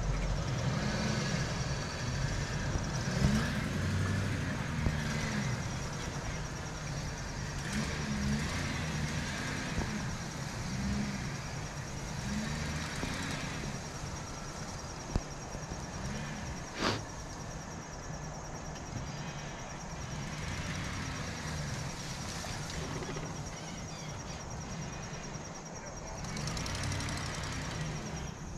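Pickup truck's engine running as it drives slowly away along a dirt woods track. A short sharp sound stands out about two-thirds of the way through.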